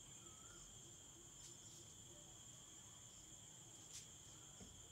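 Near silence: room tone with a faint, steady high-pitched whine and a faint click about four seconds in.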